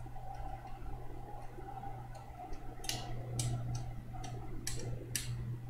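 Steady low hum with four light clicks in the second half, in two pairs about half a second apart.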